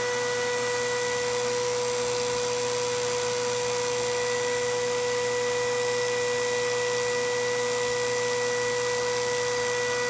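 Steady electrical whine from a high-voltage hairpin circuit powering a microwave oven's AC fan motor: one even tone with higher overtones over a constant hiss.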